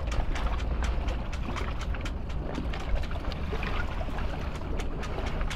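Wind buffeting the microphone in a steady low rumble, with small harbour waves lapping at the stony shoreline in many little splashes and clicks.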